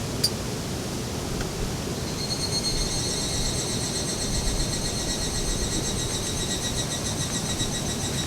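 Steady rushing of a rain-swollen river. About two seconds in a high, thin trill starts and carries on almost to the end.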